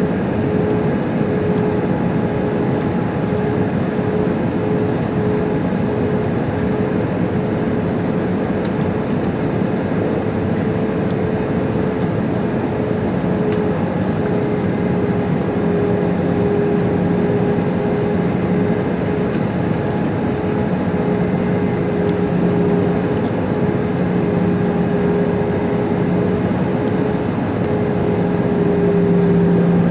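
Airliner cabin noise inside an Airbus A320-214 on approach: its CFM56 engines and the airflow make a steady drone with a steady hum. It gets slightly louder near the end.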